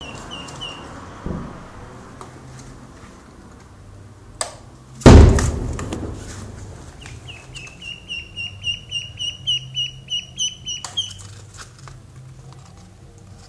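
Duckling peeping: a few short peeps at the start, then a run of rapid, evenly spaced high peeps, about four or five a second, lasting about four seconds past the middle. A loud thump about five seconds in, just after a sharp click.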